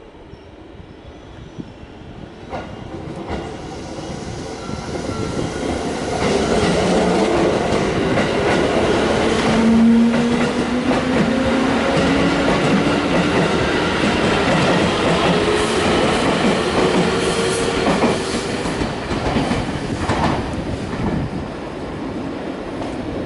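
JR Central 211 series and 313 series electric train pulling out and accelerating, growing much louder over the first several seconds and then staying loud. Motor tones rise slowly in pitch, with wheels clacking over rail joints and points.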